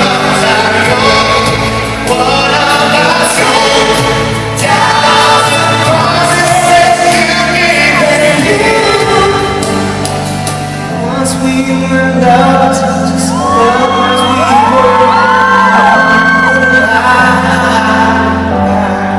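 Live pop music in a large hall: a boy band's vocal harmonies over backing music, with shouts and whoops from the audience.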